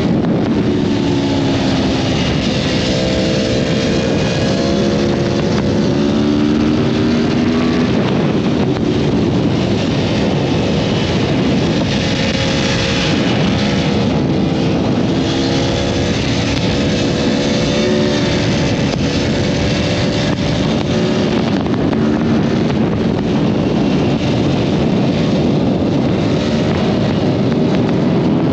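Four-cylinder sport motorcycle engine under way on the road, its note rising and falling several times with throttle and gear changes, over heavy wind rush.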